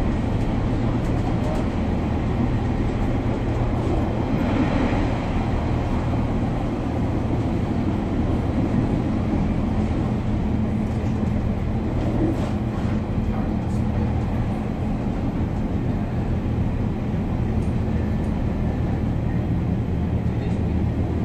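Inside a Class 142 Pacer diesel railbus: a steady low drone from the underfloor diesel engine mixed with the carriage's running noise. A few light rattles and clicks come through now and then.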